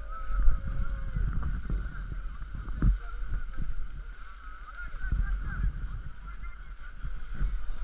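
Bicycle brakes squealing in wavering, honk-like tones as mountain bikes descend a snowy slope, over a low rumble of wind and jolts on the rider-mounted microphone.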